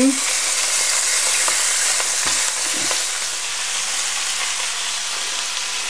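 Meat searing in hot clarified butter in a stainless steel pan: a steady sizzle, with two soft knocks about two and a half seconds in.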